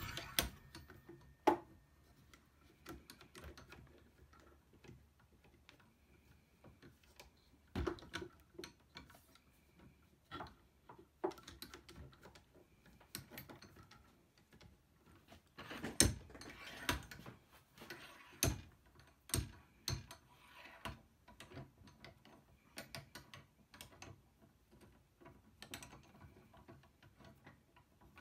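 Irregular metal clicks and knocks of a blind bearing puller and slide hammer being worked on a stuck water pump bearing, with a few sharper strikes about 8, 16 and 18 seconds in. The bearing is unusually tight and does not come free.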